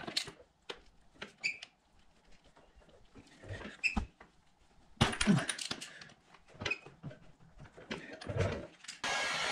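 Metal socket and extension being fitted and turned by hand on a motorcycle's front sprocket nut: scattered clicks and knocks. About nine seconds in, a handheld electric power tool starts on the nut and runs steadily.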